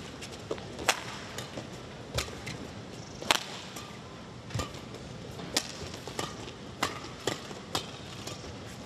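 Badminton rally: rackets striking the shuttlecock in turn, about eight sharp smacks roughly a second apart.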